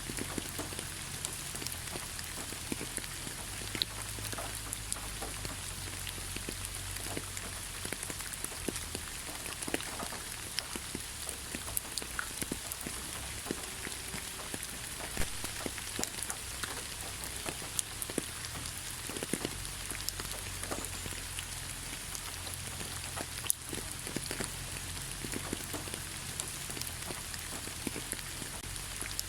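Gentle rain falling on leaves: a steady hiss with many separate drops ticking at random.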